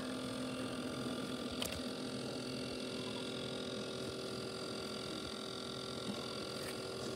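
Motorised disco-ball party lights running, giving a steady electric hum of several tones; the lowest tone fades about halfway through, and there are two faint clicks.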